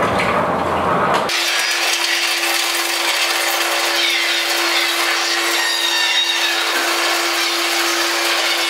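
Loud amplified scraping and rubbing noise from a contact-miked styrofoam sound sculpture and plastic, played as a live loop. About a second in, the low end drops out abruptly, leaving a thinner, high scratchy texture over a steady held tone.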